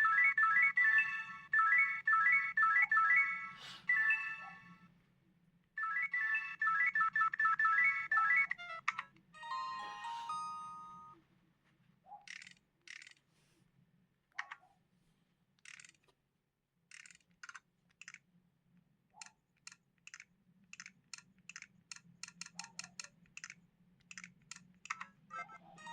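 LG KG800 Chocolate phone's speaker playing a melodic electronic ringtone phrase, which stops and plays again, then a brief different alert tone. After that comes a string of short, sharp key clicks, coming faster near the end.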